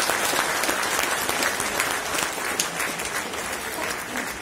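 Audience applauding in the hall, the clapping slowly dying away.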